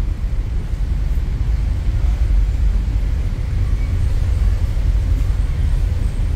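Steady low rumble of a car ferry's engines, heard inside the passenger lounge as the ship gets under way.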